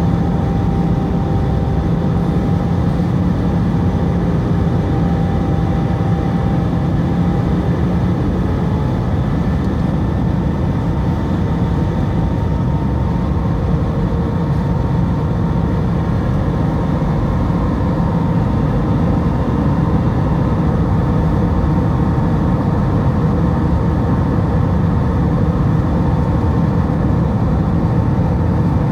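Cabin noise inside an Airbus A320 in flight: a steady rush of airflow and low engine hum, with faint engine whines that shift slightly in pitch partway through.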